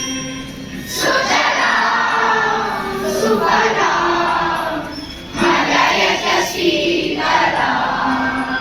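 A group of children singing together in chorus, holding long sung notes.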